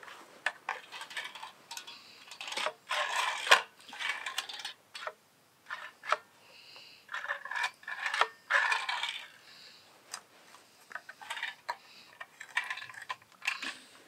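Clicks, clatter and scraping of a new circular saw being handled and adjusted by hand, its metal base plate and fittings shifted while the motor is off.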